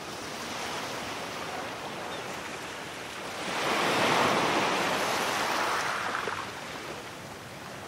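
Small sea waves breaking and washing up a sandy beach, one wave breaking louder about three and a half seconds in and dying away over the next three seconds.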